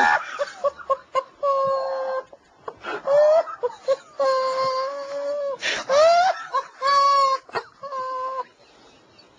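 A man laughing uncontrollably in a string of long, high-pitched wailing squeals, each held for up to a second or more with gasping breaths between, dying away near the end.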